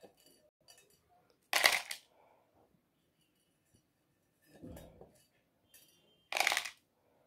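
Dried cloves and other spice pieces dropped by hand into a ceramic bowl: two short clattering rattles about five seconds apart, with a softer knock between them.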